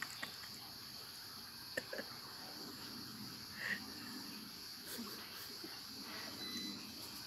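Faint steady high-pitched insect chirring, like crickets, with a few soft clicks and mouth smacks from a toddler biting and chewing grapes.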